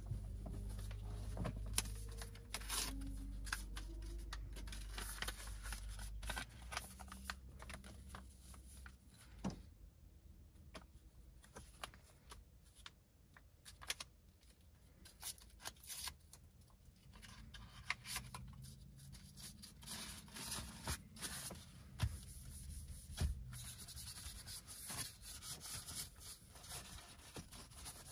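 Rustling, crinkling and small clicks of packaging being handled and a wipe packet torn open, with a cloth rubbing over a car's touchscreen. A low hum fades out in the first several seconds.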